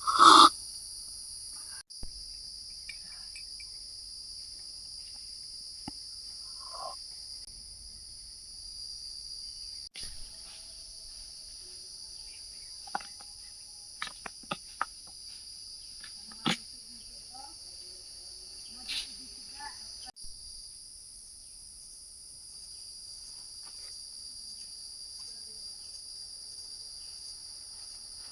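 Steady, high-pitched chorus of insects, dropping out for an instant three times. A short loud sound comes right at the start, and a scattered handful of clicks and knocks follows in the middle.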